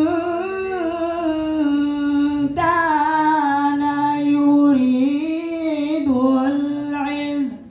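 A young man's voice in melodic Qur'an recitation, drawing out long, ornamented notes. A new phrase begins about two and a half seconds in.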